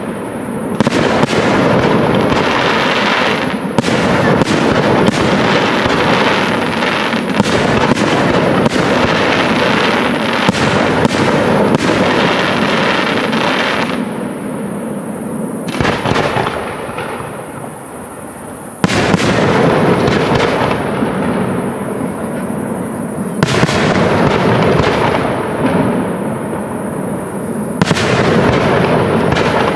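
Aerial fireworks display: shells bursting in quick succession, bangs and crackle running together. The barrage eases off a little past the middle, then starts again with a sudden bang.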